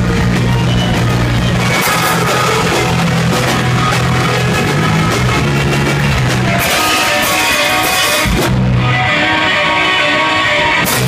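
Indie rock band playing loud live: electric guitar and drums in a dense wash of sound, the held low notes dropping out about two-thirds of the way in.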